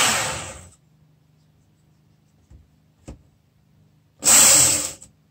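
Work Sharp Ken Onion Edition powered belt sharpener running with a whine as the high-carbon steel blade of an ESEE-5 knife is ground on its abrasive belt. The sound cuts off under a second in, two light clicks follow, and a second short burst of grinding comes near the end.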